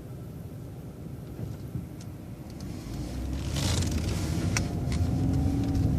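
Transit bus engine rumbling at low speed, then pulling harder about three seconds in, its engine note rising and growing louder, with a few rattling clicks from the bus.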